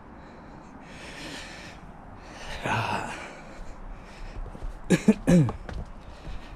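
A person breathing out heavily twice while walking. About five seconds in come sharp metal clicks and a short falling creak at a wooden garden gate, as its latch is worked and the gate moves.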